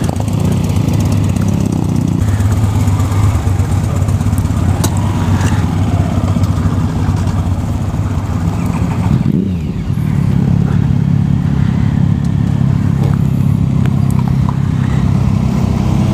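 Motorcycle engines running steadily, with a brief dip and a short change in pitch about nine to ten seconds in.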